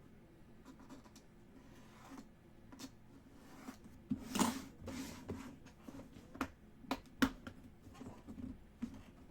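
Hands handling trading cards and their packaging on a table: light scrapes and rustles, a louder rustle about four and a half seconds in, and a few sharp clicks near the two-thirds mark.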